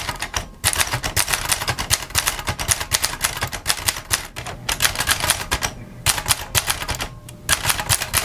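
Groma Kolibri portable typewriter being typed on fast: a rapid run of typebar strikes on the platen, broken by three brief pauses.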